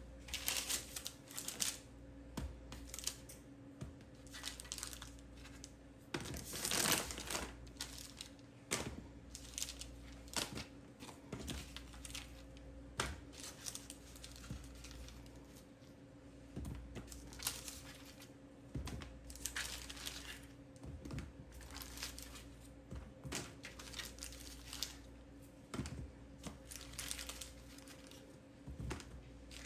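Plastic or paper crinkling and rustling as it is handled, in short irregular bursts, over a steady low hum.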